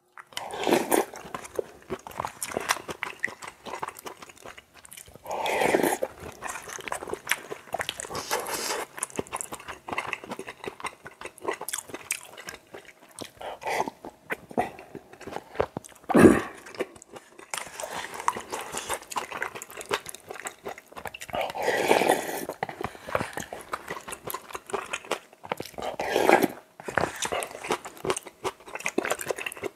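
Close-miked slurping and chewing of spicy cup ramen with rice mixed into the soup, eaten by the spoonful. Loud slurps come every few seconds, with wet chewing between.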